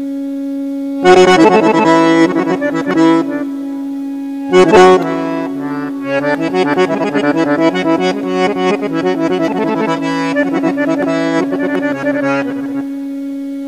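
Instrumental break in a traditional folk song: an accordion plays quick runs of notes over a steady held drone note, with loud full chords about a second in and again near five seconds.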